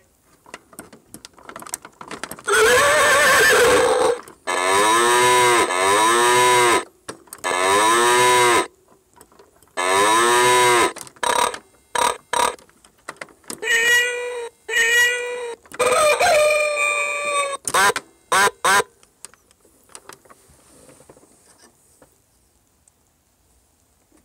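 Chicco toy train playing recorded farm-animal calls through its small speaker: a run of separate calls of a second or two each, some with a wavering pitch, then shorter calls, stopping about 19 seconds in.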